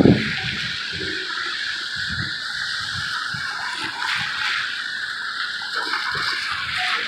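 Steady wet hiss of a rain-soaked street, with wind buffeting the microphone in the first second.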